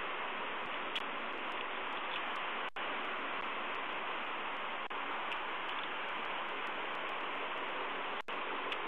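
Steady, even hiss of noise with faint ticks, broken by two very brief dropouts, one about three seconds in and one near the end.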